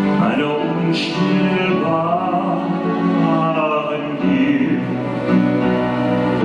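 A man singing a dramatic musical-theatre song in an operatic style into a microphone, holding and bending long notes over orchestral backing music.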